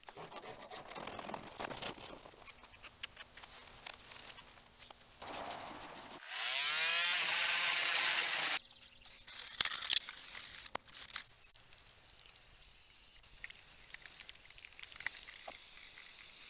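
Scratchy scraping and rubbing on the truck's bed side, then an aerosol spray can hissing loudly for about two seconds as paint goes onto the panel. A few sharp clicks follow, then a fainter steady hiss.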